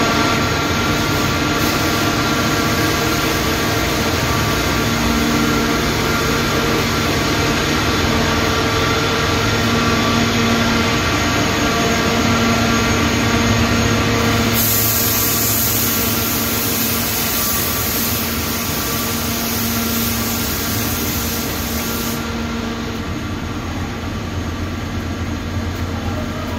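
Cotton processing machines running: a loud, steady industrial din of feed rollers and electric motors with a constant hum. A brighter hiss joins in for several seconds past the middle.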